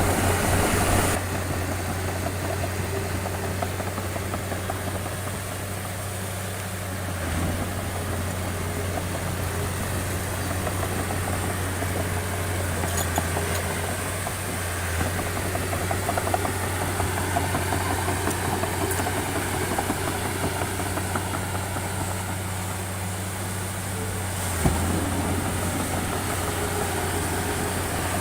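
Diesel engine of a heavy construction machine (bulldozer or excavator) running steadily with a low hum, with a single sharp knock near the end.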